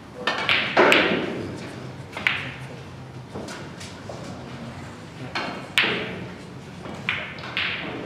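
Snooker balls clicking: the tip of the cue striking the cue ball and balls colliding on the table, heard as several sharp clicks with a short ring, the loudest about a second in.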